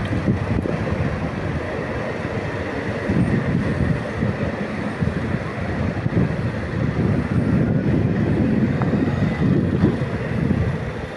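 Two coupled Stadler FLIRT electric multiple units (Koleje Mazowieckie ER75) pulling out of the platform and running past, a steady rumble of wheels and traction gear with a faint high electric whine over it.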